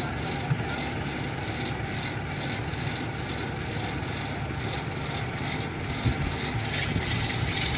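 Kubota DC-70 combine harvester's diesel engine running steadily as the tracked machine creeps down a steep dike slope, with a rhythmic high ticking about three times a second and a couple of faint thumps.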